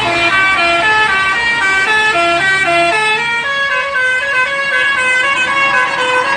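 A bus's basuri melody horn playing a quick tune: a run of short, stepped horn notes, changing pitch several times a second.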